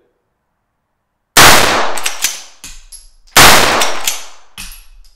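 Three shots from a Southern Gun Co LAR9 9mm lever-action carbine, about two seconds apart, the last right at the end. Short metallic clicks from the action follow the first two shots.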